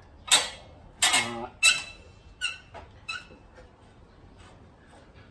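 A hand screwdriver working the small screws of a chrome headlight trim ring: about five short metallic scrapes and squeaks in the first few seconds, then quieter fiddling.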